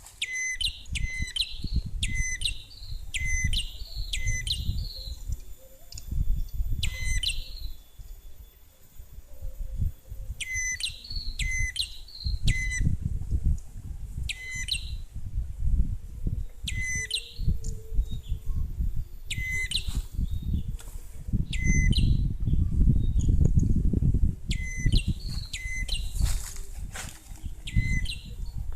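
Small birds calling: one short, sharp, high note repeated over and over in quick clusters, with gaps between the runs. A low rumble of wind or handling noise comes and goes underneath.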